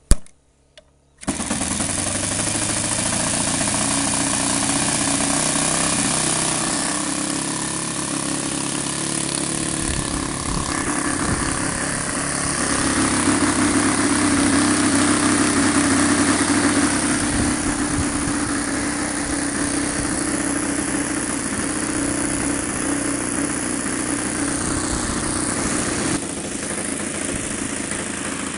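Super Magnum XL four-stroke glow engine of an RC model plane starting: a sharp click, then the engine catches about a second in and runs steadily. It gets louder around the middle and eases back a little near the end.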